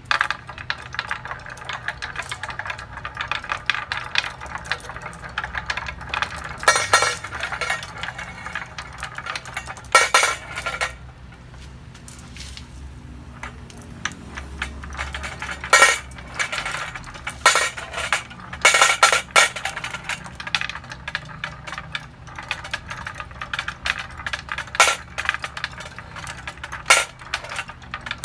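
Marbles rolling and clattering down a marble run: a steady rattle of small clicks, broken by louder sharp clacks several times as marbles hit and drop, with a quieter spell partway through.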